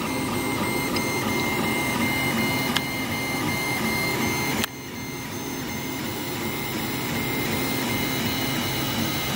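Tevo Tornado 3D printer running mid-print: stepper motors whine in shifting tones as the print head moves, over a steady fan hiss. The level drops sharply about halfway through, then the same running sound carries on.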